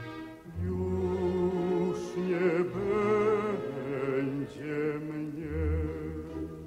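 Slow orchestral music: a melody with wide vibrato over held low bass notes.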